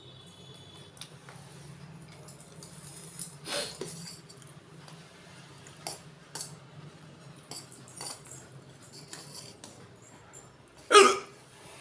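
A person's hiccup: one short, loud, sharp catch of the voice near the end, with small clicks and knocks scattered before it.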